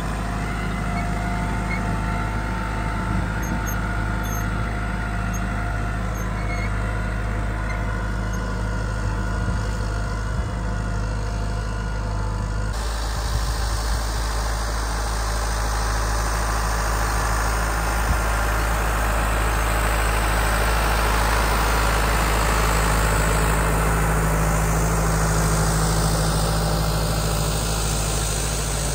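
New Holland Ford 7740 tractor's diesel engine running steadily under load, pulling a four-furrow plough. About halfway through the sound changes abruptly to a wider pass, which grows slightly louder as the tractor and plough go by.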